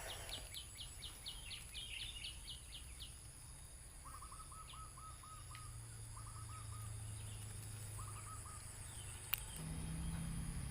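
Birds calling outdoors: a fast run of short high chirps over the first three seconds, then three short bursts of lower, quickly repeated notes. A steady low hum lies underneath, and there is one sharp click near the end.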